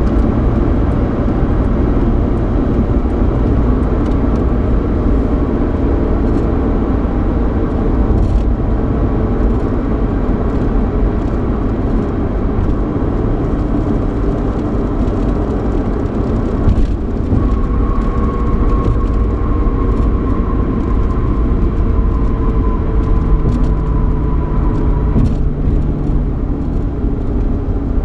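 Cabin noise inside a 3.8-litre V6 Ford Mustang on the move: steady low engine and road rumble with tyre noise. In the second half a faint whine slowly falls in pitch.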